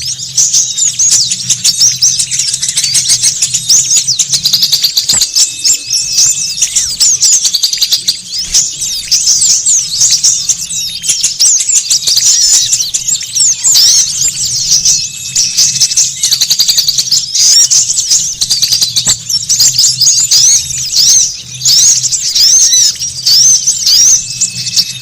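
Dense, unbroken chorus of many small songbirds chattering with rapid, overlapping high chirps and trills: a noisy small-bird lure recording (pikat) played to draw in wild small birds.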